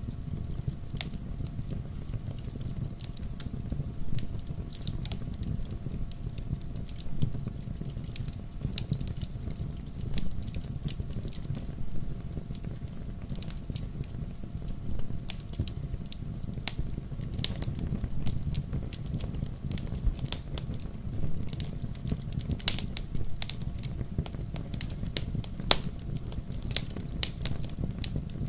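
Bonfire burning with a steady low rumble and frequent small crackles and pops of burning wood.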